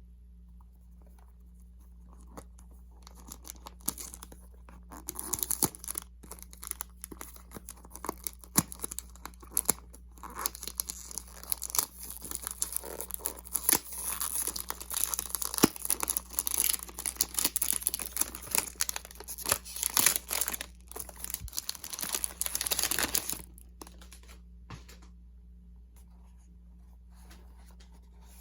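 Packaging being torn open and crinkled by hand: dense crackling and tearing from a few seconds in until about 23 seconds, then it stops, leaving a faint steady hum.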